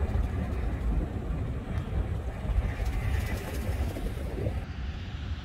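Low, uneven rumble of a vehicle moving slowly along a street.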